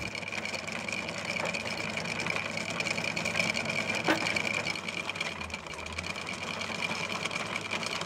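Electric anchor windlass running steadily with a high whine, paying out anchor chain.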